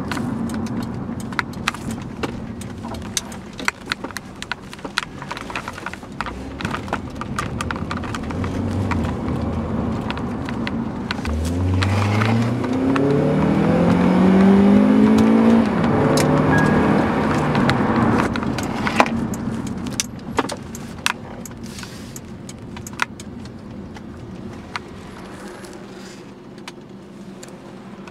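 2007 Honda Accord Type S heard from inside the cabin while driving: engine and road noise. From around the middle, the engine note climbs steadily for about four seconds as the car accelerates, then drops with a gear change. After that the car eases off and the sound grows quieter. Many small clicks and rattles run throughout.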